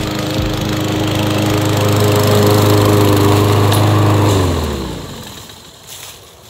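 Toro Recycler 22-inch push mower engine running steadily, growing louder as the mower comes closer, then winding down in pitch and stopping about four and a half seconds in.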